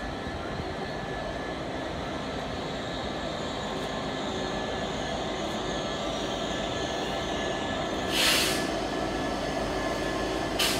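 Class 66 diesel locomotive approaching, its EMD two-stroke V12 running steadily and growing slowly louder as it nears. A short, loud hiss comes about eight seconds in, with a briefer one near the end.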